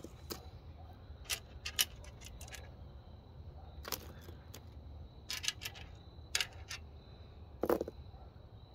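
Transmission pan bolts clicking and clinking as they are picked up and set down on the workbench, a handful of separate small metal clicks with pauses between them; the loudest is a duller knock near the end.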